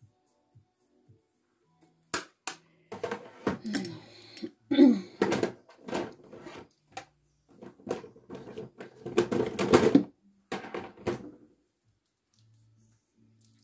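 Makeup products being rummaged through and handled: plastic compacts and cases clicking and clattering against each other in a busy run from about two seconds in, stopping near the end.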